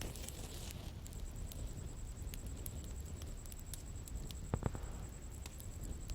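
Bonfire crackling: scattered sharp pops and ticks of burning wood over a low rumble of the flames, with a couple of louder pops about four and a half seconds in.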